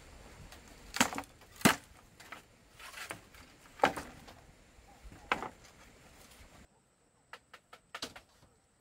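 Wood or bamboo being struck: four loud, irregularly spaced chopping knocks, then several lighter, quicker taps near the end.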